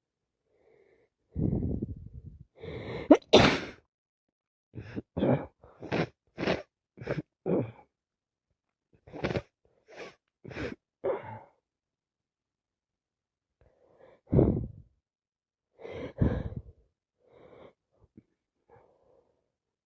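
Person with a bad head cold sneezing over and over: one loud sneeze about three seconds in, then two quick runs of short, sharp sneezes, and a few more spaced out near the end.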